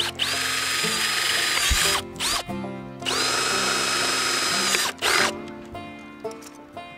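Cordless drill boring zip-tie holes through the walls of nested plastic 5-gallon buckets: two runs of about two seconds each, the motor whine rising as the trigger is squeezed and dropping when it is let go, with a short blip between them.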